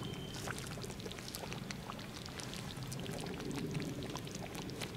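Thick stew simmering in a cast-iron Dutch oven over a wood campfire: a steady bubbling with many small, irregular pops and crackles.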